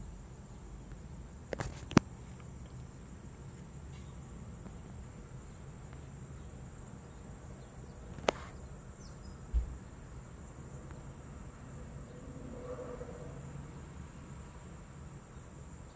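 A steady high-pitched whine over low background hiss, broken by a few sharp clicks and one dull thump.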